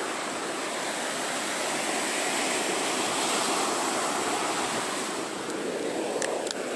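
Sea surf washing on a beach, a steady rush of breaking waves that swells gently and eases a little about five seconds in.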